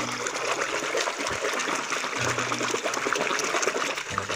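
Water splashing and trickling as a mud-covered toy vehicle is washed in clean water.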